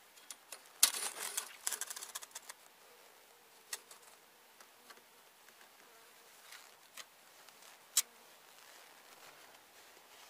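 Thin metal tool clicking and scraping in a hive's slotted metal entrance reducer: a quick rattling run of clicks about a second in, then a few single clicks, one sharp one near the end. Honey bees buzz faintly at the entrance.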